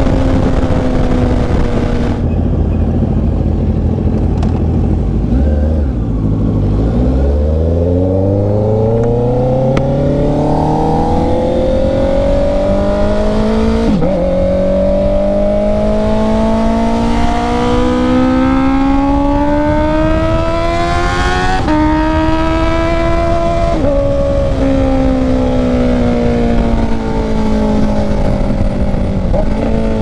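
Honda CB650R's inline-four engine under way: it runs at a steady pitch, then after a brief low dip climbs steadily, dropping suddenly at two upshifts about halfway and two-thirds of the way through, before falling away as the bike slows near the end. Wind and road rush run beneath it throughout.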